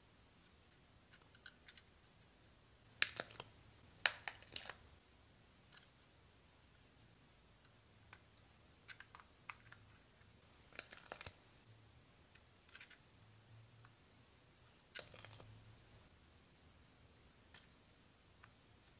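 Faint handling of a plastic building-block model in the fingers: scattered small clicks and taps of plastic pieces, in a few short clusters, with quiet room tone between.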